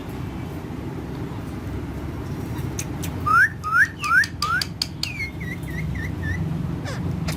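A parrot whistling: four short rising whistles in quick succession, with a few sharp clicks, then a quick string of short falling notes. A steady low rumble runs underneath.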